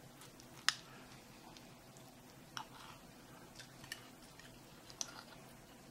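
A few faint, sharp clicks of a fork against a ceramic plate as a piece of salmon is cut. The sharpest comes a little under a second in, with softer ones spread over the rest.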